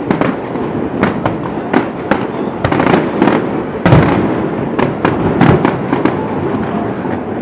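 Fireworks going off: a dense run of sharp crackling bangs and shell bursts over a continuous rumble, with the loudest blast about four seconds in.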